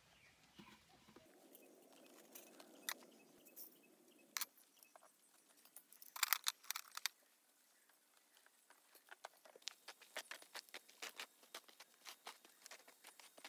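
Stainless-steel fire-pit parts clinking and rattling as they are handled and fitted together, with the loudest cluster of metal clinks about six seconds in. Near the end, a run of quick light crunches of footsteps on dry pine needles and gravelly ground.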